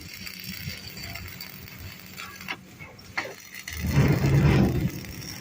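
Metal workshop sounds: a few sharp knocks, then a loud low rumble lasting about a second, starting around four seconds in.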